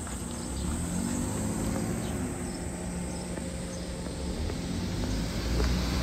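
BMW R1200GS Adventure's boxer-twin engine running as the motorcycle is ridden, with wind rumble on the microphone; it gets a little louder about a second in.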